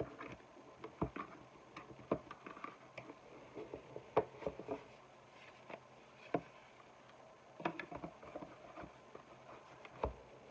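Hands handling a rigid cardboard box as its lid is worked off: irregular taps, knocks and scrapes of cardboard, with soft rustling between.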